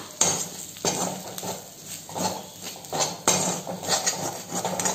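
A utensil stirring and scraping onions and spice powders around a pan in repeated strokes, about one or two a second, to keep the powders from burning on the hot pan.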